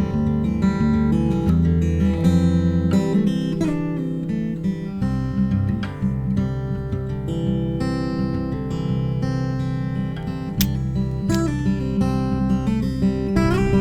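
Background music: acoustic guitar, plucked and strummed chords, with squeaks of fingers sliding on the strings.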